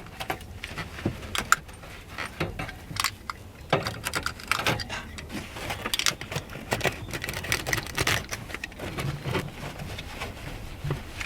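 Carpet being handled and trimmed to fit with a utility knife: irregular rustling, scraping and sharp little clicks throughout.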